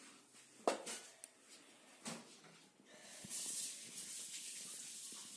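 A few sharp knocks in the first two seconds, then a steady hiss starting about three seconds in.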